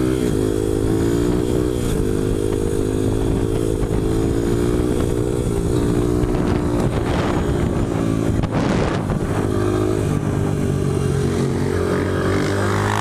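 2001 Honda XR100R's 99cc single-cylinder four-stroke engine running at steady high revs under throttle during a wheelie, its pitch wavering slightly. Wind rushes over the microphone, strongest a little past the middle.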